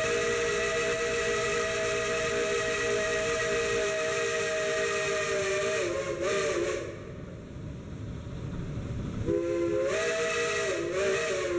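Shay steam locomotive's chime whistle blowing two long blasts, each a chord of several notes at once that wavers in pitch as it tails off. Steam hisses in the gap of about two seconds between them.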